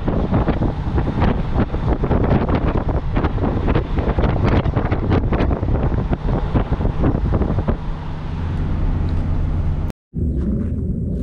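Wind buffeting the microphone over the noise of a moving vehicle. About eight seconds in, the gusts ease into a steadier engine and road hum. The sound drops out briefly near the end.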